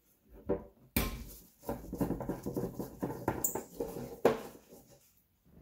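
Screwdriver backing out the small screws that hold the circuit board in a Honda OBD1 ECU's metal case: a sharp click about a second in, then a run of squeaking, scraping and small clicks of the driver turning in the screw heads, with taps as loosened screws are set down on the desk.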